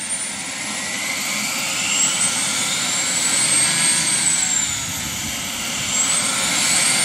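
JetCat model turboprop engine of a scale T-27 Tucano running on the ground with the propeller turning. Its high turbine whine rises in pitch, peaks about four seconds in and falls back, then rises again near the end as the engine spools up and down.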